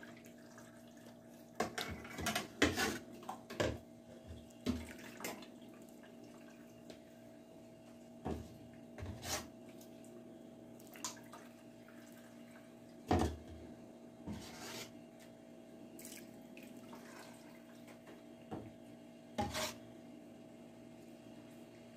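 Curdled milk being scooped from a steel pot with a mug and poured onto a cloth strainer. Scattered knocks and scrapes of the mug against the pot and splashes of whey, the loudest about 13 seconds in, over a faint steady hum.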